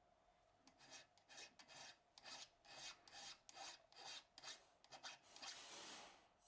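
Faint strokes of a hand file rasping on metal, about two a second with a longer stroke near the end, dressing back freshly welded build-up on a cast-iron corker part.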